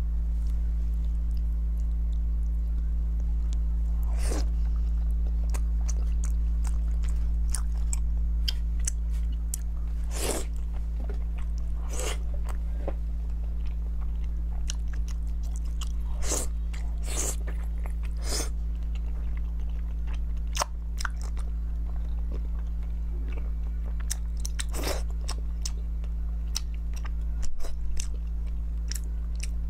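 Close-up chewing and biting of soft, fatty braised pork belly: wet mouth clicks and smacks come at irregular intervals, over a steady low hum.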